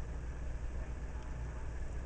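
Steady low rumble with a faint even hiss, unchanging and without distinct knocks or calls.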